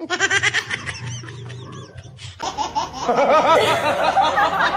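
Laughter sound effects: a child laughing hard in quick high bursts, then, from about two and a half seconds in, a different, fuller laughing clip.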